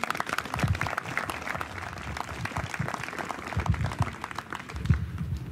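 Audience applauding, with a few low thumps from a handheld microphone being handled as it is passed from one person to another, the loudest about five seconds in.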